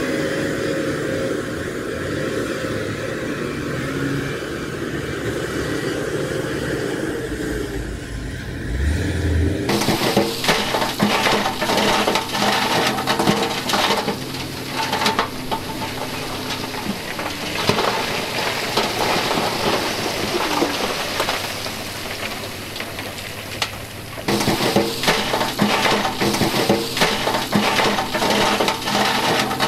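Heavy diesel engine running steadily. From about ten seconds in, loose rock clatters and grinds as it slides out of the raised dump-truck bed, over the engine's hum.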